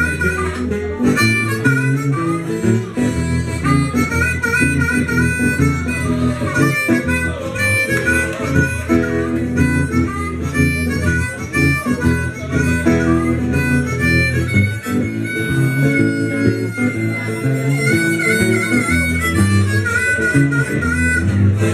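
Blues harmonica solo played into a microphone over a strummed acoustic guitar rhythm, with bent notes and one long held note about two-thirds of the way through.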